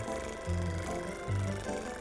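Background music with a steady beat: a low bass note about every 0.8 seconds under held higher notes.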